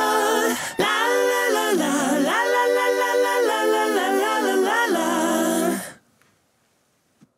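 Background music: a song with sung vocals in harmony, ending about six seconds in, then near silence.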